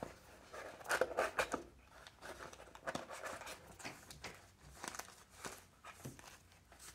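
Hands handling a small white box and its insert: light rustling, scraping and soft taps in scattered bursts, the busiest about a second in, with more around three and five seconds in.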